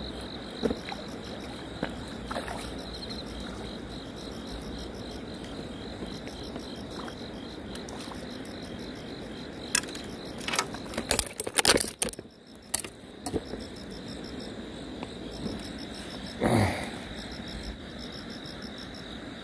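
Insects chirping steadily in the background, with a cluster of sharp clicks and knocks about ten to thirteen seconds in as a hooked crucian carp is swung in on the rod and handled.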